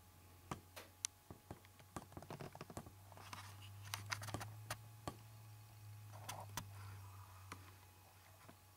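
Camera being handled and reframed: a run of light, irregular clicks and taps over a low steady hum, thickest in the first few seconds and thinning out towards the end.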